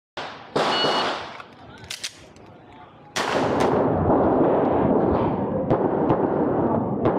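A short beep about half a second in, then pistol shots fired in quick pairs about half a second apart, over a constant rush of noise.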